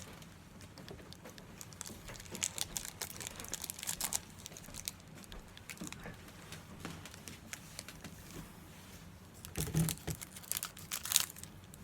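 Foil Pokémon booster pack wrapper crinkling as it is handled and torn open, in bursts of crackling rustle, busiest a couple of seconds in and again near the end.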